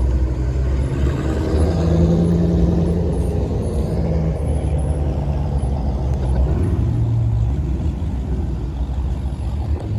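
Car engines running close by: a deep, steady exhaust rumble, with a held low note for a couple of seconds near the start and a shorter one about seven seconds in.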